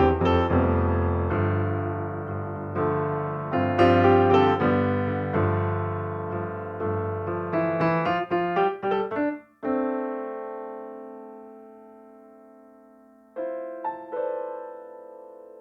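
Solo piano music. A run of notes slows into one long chord about ten seconds in and fades away, then two more soft notes follow.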